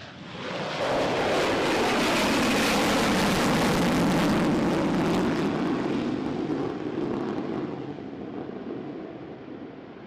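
B-1B Lancer's four afterburning turbofan engines at full power as the bomber climbs out overhead after takeoff: loud jet noise with a ragged crackle swells about half a second in, drops in pitch as it passes, and fades away over the last few seconds as it climbs off.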